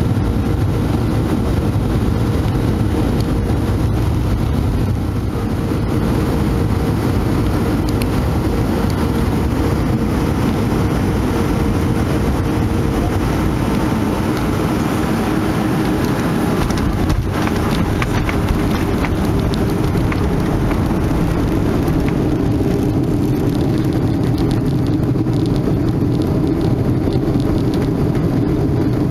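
Steady jet-engine and airflow rumble inside the cabin of a Boeing 737-500 with CFM56-3 engines as it touches down and rolls out on the runway. A faint hum fades out about halfway, and there is one short knock a few seconds later.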